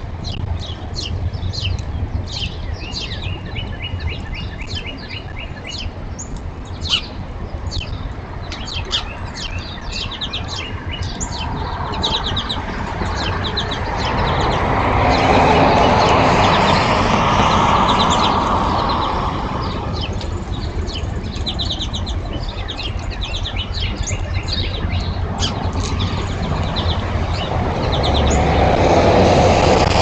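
Small birds chirping repeatedly in quick short notes. About halfway through a vehicle passes, swelling and fading, and another approaches near the end.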